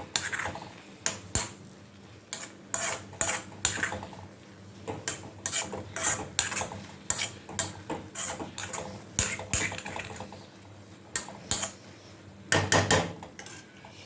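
Utensil clinking and scraping against a pan as instant noodles are stirred and mixed, in irregular knocks of two or three a second, with a louder flurry near the end.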